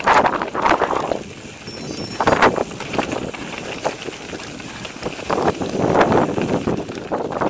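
Mountain bike riding a loose gravel forest trail: tyres crunching over stones and the bike rattling, swelling and easing in irregular surges, with wind buffeting the microphone.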